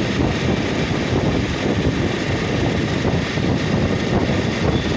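Steady wind rush over the microphone with engine and road noise from a motorcycle riding at highway speed.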